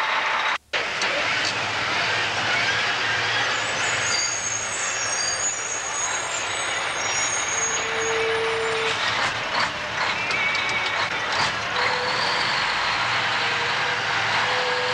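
Mack dump truck driving, its diesel engine and road noise running steadily, with thin high squeals about four to seven seconds in and a few sharp clicks around ten seconds in. The sound cuts out for an instant just under a second in.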